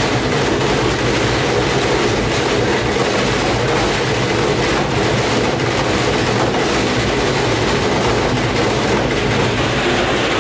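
Gorenje WNHEI washing machine running hard with a soaking wet load: a loud, steady mechanical drone with a constant rattle from the machine.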